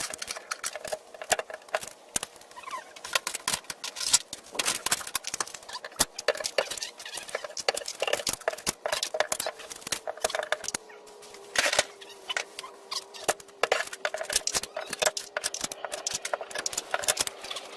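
Rapid, irregular clicking and crackling of close-up handling noise, with a faint steady tone from about ten seconds in.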